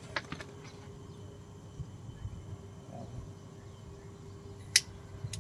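Quiet open-air ambience with a faint steady hum and a few sharp clicks, the loudest about half a second before the end.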